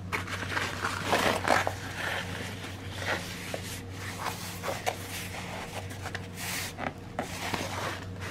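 A soft paint-by-numbers canvas being handled and smoothed flat by hand: irregular rustling and rubbing of the fabric, with a steady low hum underneath.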